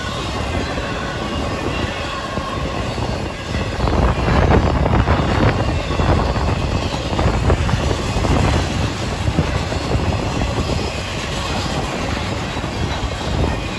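Intermodal freight train rolling past at a grade crossing: a steady rumble of flatcars carrying trailers and stacked containers, with wheels clacking over rail joints. It gets louder for a few seconds about four seconds in. Strong wind buffeting the microphone runs under it all.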